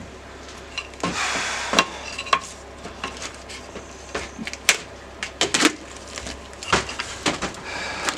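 Pieces of wood and tools being handled on a workbench: scattered knocks and clicks as they are set down and moved, with a short scraping rub about a second in.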